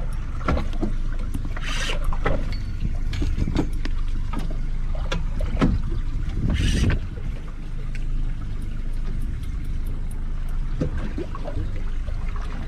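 Small fishing boat at sea: a steady low rumble with water against the hull, scattered small knocks and clicks, and two louder rushes of noise about two and seven seconds in.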